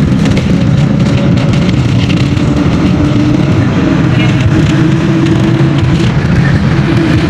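Inside a moving passenger van: a steady drone of engine and road noise, with a faint engine whine over it.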